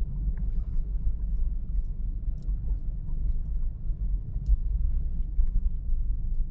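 Car driving up a parking-garage ramp, heard from inside: a steady low rumble of engine and tyre noise, with a few faint ticks.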